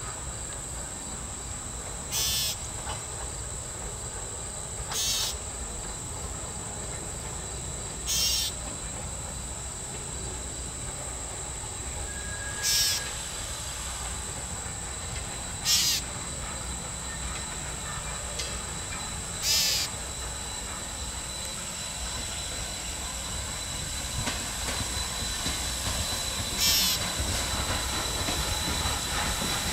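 Norfolk and Western No. 475, a 4-8-0 steam locomotive, working toward the listener as a low rumble that grows louder over the last few seconds. Over it runs a steady high insect drone, with short high insect chirps about every three seconds that stand out as the loudest sounds.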